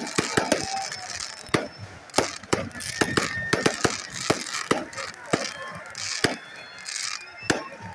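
Fireworks going off in an irregular string of sharp cracks and pops, several a second, over the murmur of a crowd.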